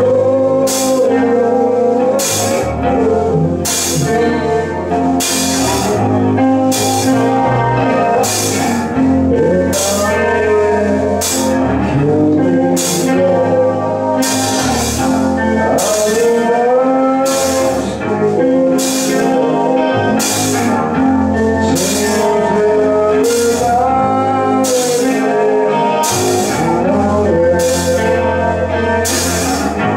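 Live rock band playing: electric guitar, bass guitar and a drum kit keeping a steady beat with regular cymbal strikes, under a singer's vocal line.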